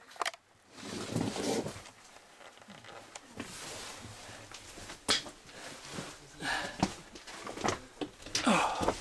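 Scattered footsteps, scrapes and knocks on loose rock in a cave entrance, with indistinct voices near the end.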